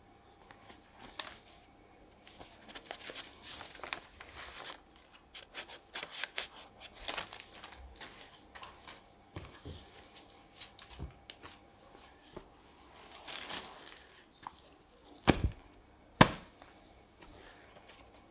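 Gloved hands handling a board game's paper cards and plastic pieces: paper rustling and light clicking, with two sharp knocks about a second apart near the end.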